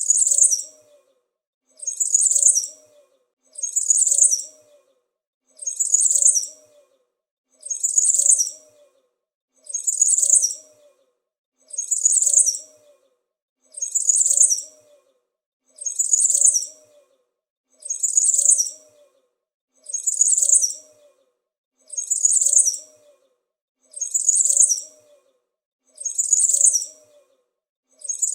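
A small bird's high-pitched chirp, repeated at even spacing about every two seconds, like a looped sound effect.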